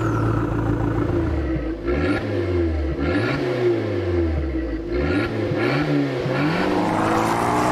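A car engine revving hard, its pitch rising and falling in several blips with short crackles between them, then climbing steadily near the end.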